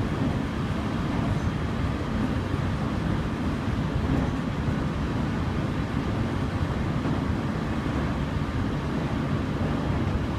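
Interior running noise of a JR Kyushu 815 series electric multiple unit (KuMoHa 815-25) at speed on a downgrade: a steady, mostly low rumble of wheels on rail and the moving car, with no breaks or distinct knocks.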